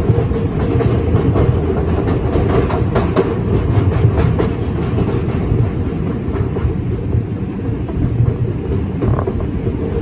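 R142 subway car running at speed, heard from inside the car: a steady low rumble of wheels and running gear, with rapid clicks of the wheels over rail joints that thin out about halfway through.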